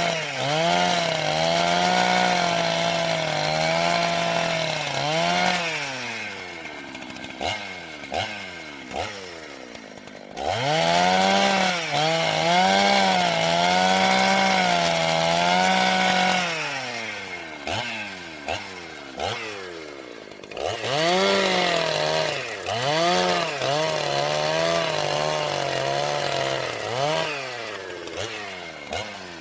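Gasoline chainsaw cutting wood: three long spells at full throttle with the pitch wavering, each dropping back to idle with short throttle blips between.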